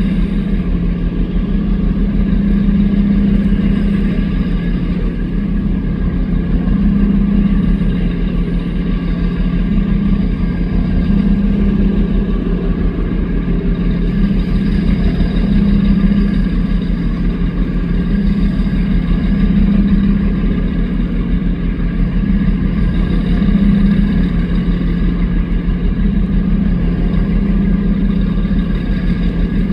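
Engines of a fast passenger motorboat running steadily at speed. A deep, constant drone swells and eases every few seconds.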